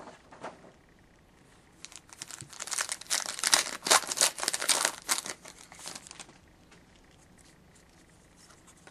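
Wrapper of a 2011-12 Panini Contenders hockey card pack being torn open and crinkled in the hands, a crackly rustling that lasts about four seconds from about two seconds in.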